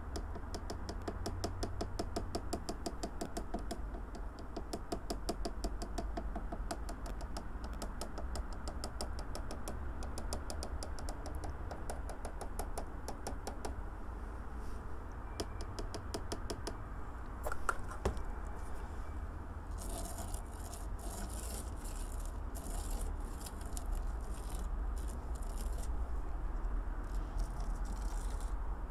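Fine model-railway ballast trickling off a shaken teaspoon onto the track, a fast, even run of light ticks and grain patter. Near the end this gives way to scraping as the loose grains are pushed along the sleepers with a fingertip.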